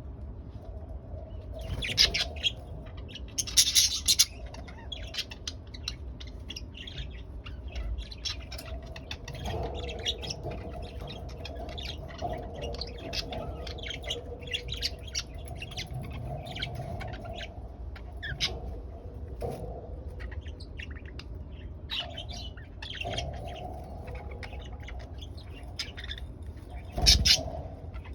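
Budgerigars chirping and chattering in rapid short calls, with a few louder squawks about two, four and twenty-seven seconds in.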